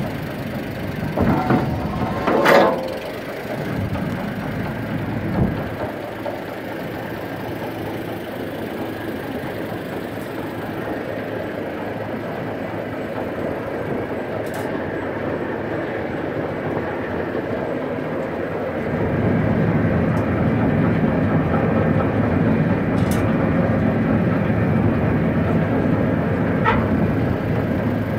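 An engine running steadily at idle, with a few metallic clanks in the first few seconds. The running sound grows louder and deeper about two-thirds of the way through.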